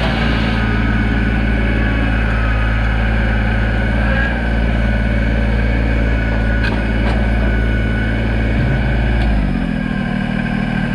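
Kubota BX24 sub-compact tractor's three-cylinder diesel engine running steadily under throttle as the tractor is driven. Its revs drop about nine seconds in.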